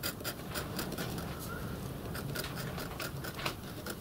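Steel scriber scratching marking lines on a metal locomotive cylinder block coated in layout fluid: a quick series of short, light scrapes, several a second.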